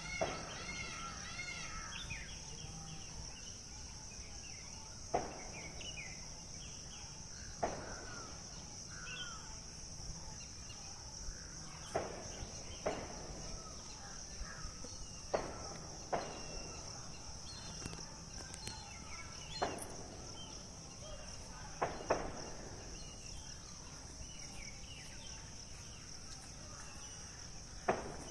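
Steady high-pitched insect chorus, with scattered short bird chirps and a dozen or so sharp, brief knocks at irregular intervals.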